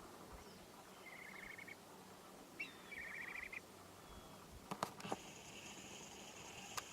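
Faint small-bird trills: two short, rapid trills, one about a second in and one about three seconds in. A few sharp clicks follow near five seconds and one near the end, with a thin steady high tone in the last two seconds.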